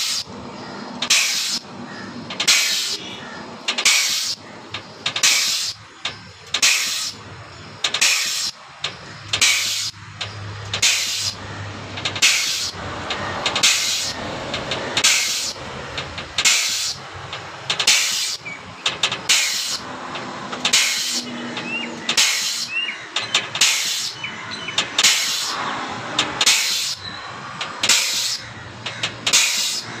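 Air-over-hydraulic bottle jack's air-driven pump cycling: a short, sharp hiss of exhaust air about every two-thirds of a second, in an even rhythm, as it pumps the jack.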